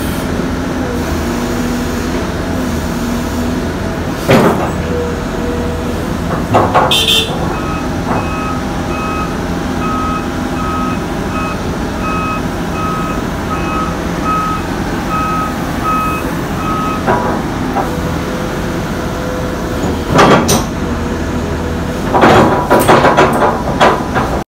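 Large Volvo excavators running with a steady diesel rumble. A warning alarm beeps in a quick, even pattern from about a third of the way in until past the middle. Loud metallic clanks sound a few times, with a cluster of them near the end.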